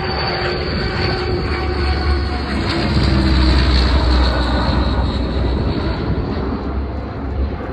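Military aircraft engines at high power, a loud steady rush with a deep rumble that swells about three seconds in, with a faint tone sliding slightly lower as the aircraft passes.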